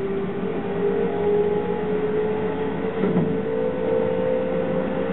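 Keihan 13000 series electric train running, heard from inside the leading car: a steady electric motor whine that rises slowly in pitch as the train gathers speed, over a constant rumble of running noise.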